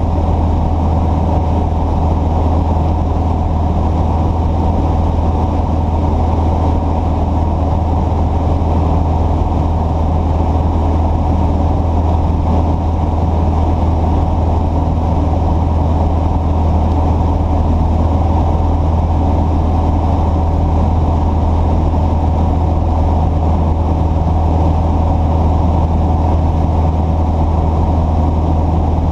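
A large engine running steadily at a constant idle, a deep, even hum with no change in pitch.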